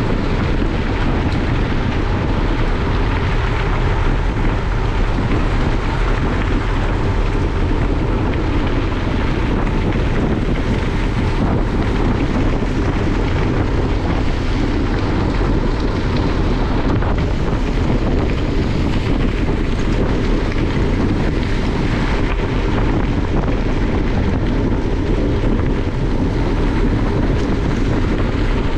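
Steady wind rushing over the microphone of a camera on a bicycle ridden at speed, over the constant rumble of the bike's tyres rolling on gravel road.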